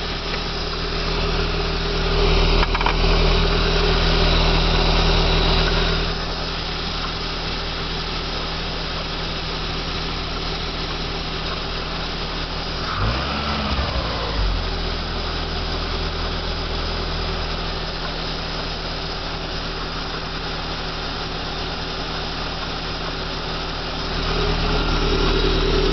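1989 Toyota MR2's small-port 4A-GE twin-cam four-cylinder idling steadily, with a faint gurgling from the intake that the owner traces to the oil catch can. It grows louder for a few seconds about two seconds in and again near the end, with two brief knocks about halfway through.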